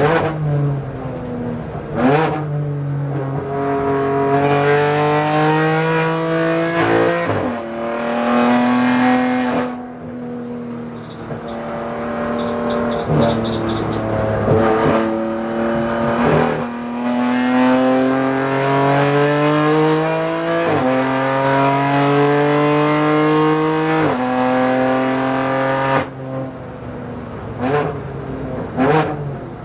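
BMW M4 GT4 race car's twin-turbo straight-six engine heard from inside the cockpit, pulling hard through the gears: the pitch climbs under full throttle, then drops suddenly at each quick shift. Near the end it comes off the throttle and a few short sharp cracks sound as it brakes and downshifts.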